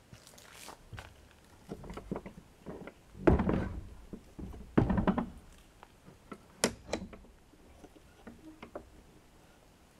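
Wooden plank door thudding twice in its frame about a second and a half apart as it is pushed and handled, followed by two sharp clicks from its latch.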